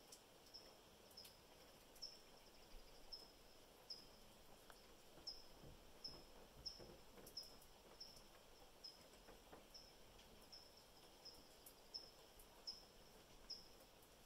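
A cricket chirping steadily and faintly: one short high chirp about every two-thirds of a second. Occasional faint ticks sound in the very quiet background.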